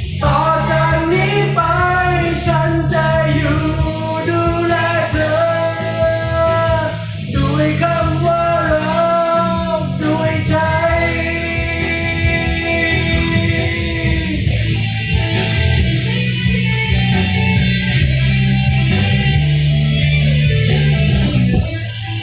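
Rock music: a band playing an instrumental passage with a sustained melodic lead line over a steady bass.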